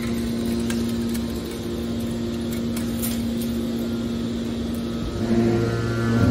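Hydraulic scrap-metal baler's power unit running with a steady hum. About five seconds in, a louder, deeper hum comes in as the hydraulics take load.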